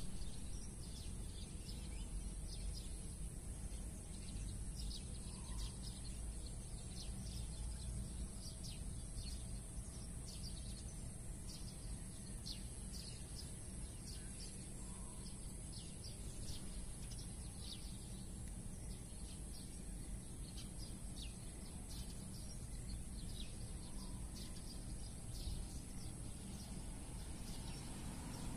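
Open-air ambience: many short bird chirps scattered throughout, over a steady low rumble of wind on the microphone and a constant high-pitched hiss.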